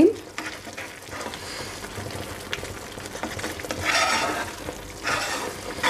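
Spoon stirring and scraping a carrot and fox-nut pudding mixture in a pan over a low flame, with louder scrapes about four and five seconds in.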